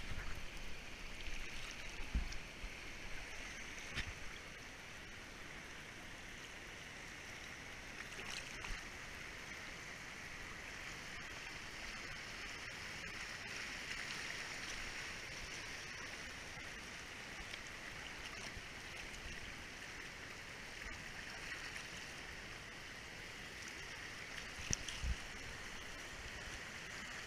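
Shallow mountain creek rushing and gurgling over rocks close by, a steady rush that grows a little louder around the middle as the water runs through whitewater riffles. A few low thumps near the start and again near the end.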